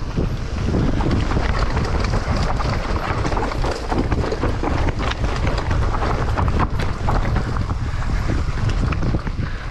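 Wind buffeting the microphone over the crunch and rattle of a mountain bike rolling fast down a rough dirt and rock trail, with a steady run of small knocks and clicks from the tyres, chain and frame.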